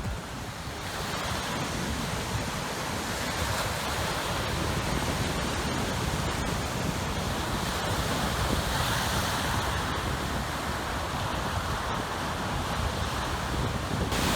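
Waves breaking on the shore in a strong wind, with gusts buffeting the microphone. The noise is steady throughout.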